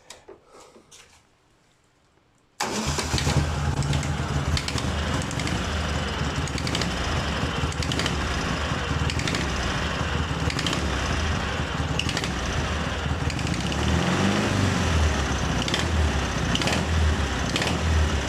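Twin-cylinder motorcycle engine catching abruptly about two and a half seconds in and running cold, with the engine note rising a little on throttle blips later on. It carries a ringing knock from the left cylinder that shows only when cold and when revved, which the owner takes for piston skirt slap, the piston pin, or gases blowing past the head gasket.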